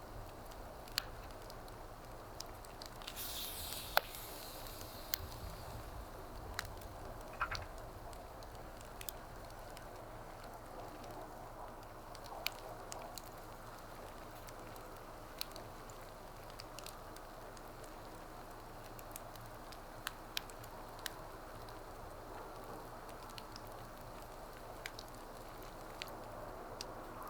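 Wood fire crackling, with scattered sharp pops of burning wood; the loudest pop comes about four seconds in. A brief hiss is heard about three seconds in.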